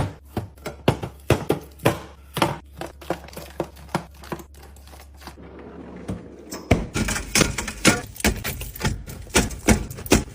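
Containers and food items being set down and arranged while a fridge is restocked: a string of irregular knocks, taps and clatter, several a second. A low hum stops about two-thirds of the way through.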